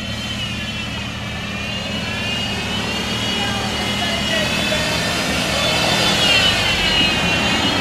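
Jeep's engine running steadily with a high whine over it that drifts up and down in pitch, growing slowly louder.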